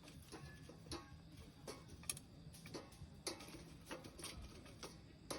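Wood fire crackling in a Solo Stove wood-burning stove: irregular sharp pops and snaps, roughly one or two a second, over a faint low rumble of the burning fire.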